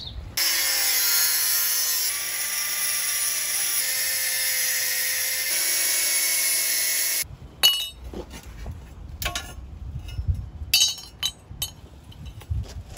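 Angle grinder cutting through the chainstays of a BMX frame: a steady high whine for about seven seconds that shifts pitch twice as it bites, then stops abruptly. Scattered metal knocks and clinks follow.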